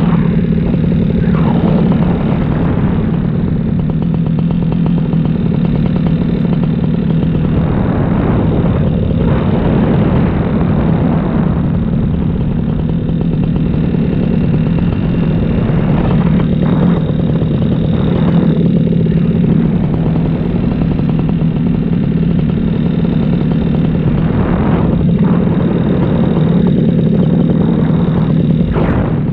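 Paramotor engine and propeller running steadily in flight, with rushing wind noise that swells several times.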